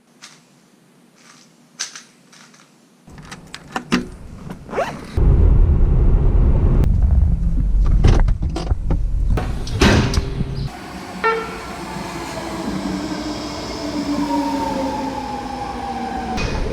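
A train ride: a few clicks and knocks, then from about five seconds a loud low rumble of a train running. From about eleven seconds a whine slowly falls in pitch as the train slows down.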